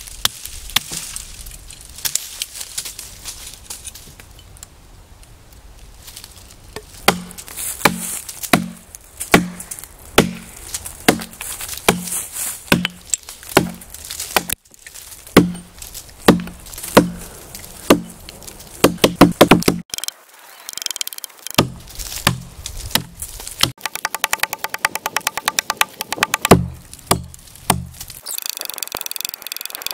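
Hatchet chopping into a pine log: a steady run of blows, about one every 0.7 seconds, each a sharp hit with a low thud. A faster, denser flurry of strikes comes in the last third.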